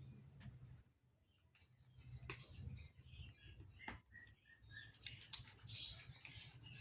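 Quiet room tone with a steady low hum, a single sharp click a little over two seconds in, and a few faint short chirps, like a small bird, about four seconds in.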